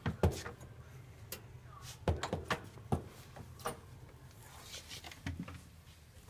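Scattered soft knocks, clicks and rustles of a handheld camera being moved and bumped in a small room, about seven in all, the loudest near the start and about two seconds in, over a low steady hum.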